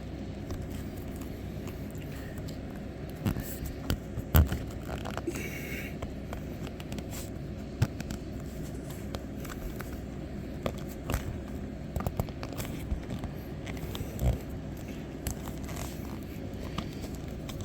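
Scattered clicks, light knocks and scraping as a rubber windshield seal and its trim are worked into place by hand, with two sharper knocks about four and fourteen seconds in, over a steady low hum.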